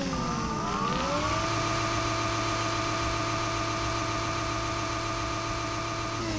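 Several tower-crane hoist winches whining together over a low hum. Their pitches slide down in the first second, climb back up and hold steady as the hooks travel on their cables.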